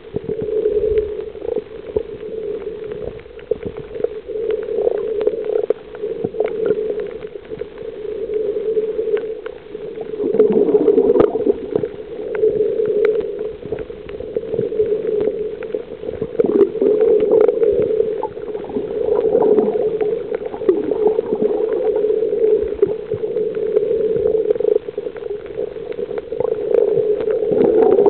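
Muffled water noise picked up by a camera underwater: a steady dull rushing and gurgling that swells every few seconds, with scattered small clicks.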